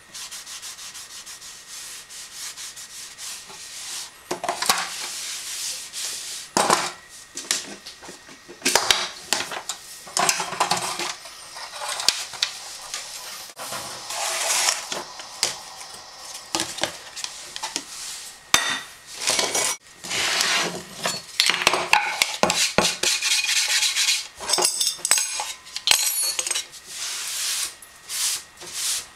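Dishes and cutlery being handled in a kitchen: irregular clattering, scraping and rubbing, with a quick run of bright clinks near the end.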